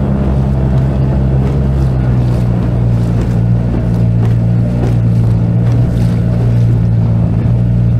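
Boat's outboard motor running steadily at moderate speed while the boat moves through choppy waves.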